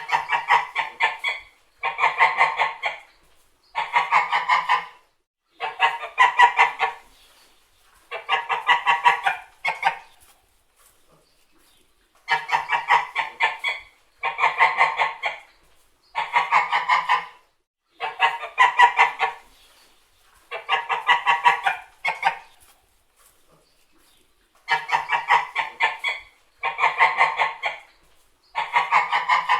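White geese honking in repeated bouts of quick, clipped honks. Each bout lasts about a second and a half and comes roughly every two seconds, with a couple of longer pauses between.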